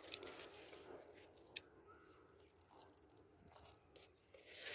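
Near silence with a few faint crunching and rustling handling sounds, and a brief louder rustle near the end.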